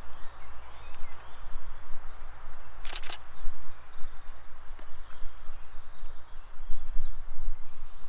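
A camera shutter firing a short burst of three or four frames about three seconds in, over faint calls of forest songbirds and a steady low rumble.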